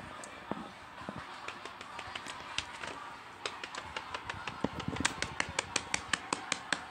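Quick, light clicks and taps from handling fidget toys, sparse at first and then coming about four a second from about halfway through, with soft knocks as toys are moved on the paper.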